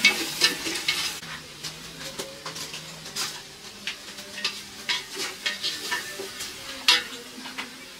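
A utensil stirring and scraping food in a pan as it fries, with a thin sizzle under it. The scrapes and knocks come irregularly, thick at first and then about one a second, with a louder one near the end.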